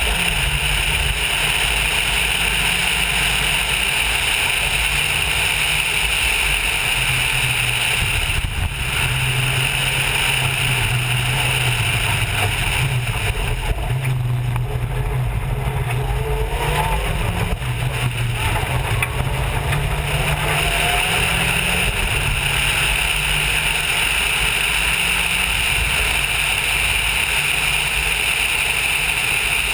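Rally car at speed on a gravel stage, heard from a bonnet-mounted camera: the engine runs hard, its pitch stepping up and down, over a steady rushing noise of the car moving along the loose gravel.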